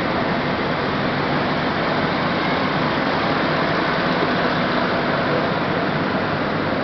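Diesel engine of a Bizon pushboat running steadily as the boat moves close past, a constant engine noise without breaks.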